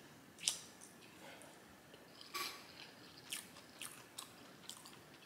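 Close-up mouth sounds of someone chewing Singapore noodles with open-mouthed smacking: about five short, wet smacks and clicks at irregular intervals, the longest about two and a half seconds in.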